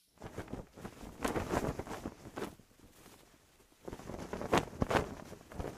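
Cloth flag flapping in the wind: irregular flutter with quick cracks, in two spells with a quieter lull of about a second in the middle.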